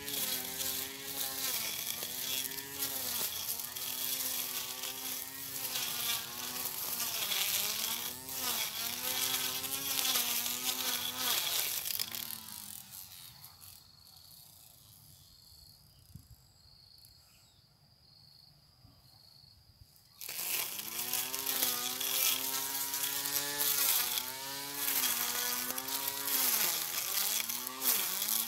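Portable electric lawn mower's motor whining, its pitch dipping and recovering every second or two as it cuts grass. About halfway through it winds down and stops, then starts up again abruptly some six seconds later.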